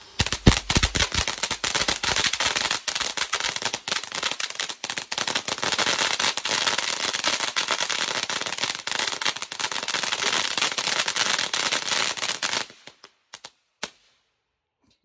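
"Yellow Bees" firework fountain crackling loudly in a dense, rapid string of pops, with a few low thumps as the crackle starts. The crackling stops suddenly about twelve and a half seconds in, followed by a few last scattered pops as the fountain burns out.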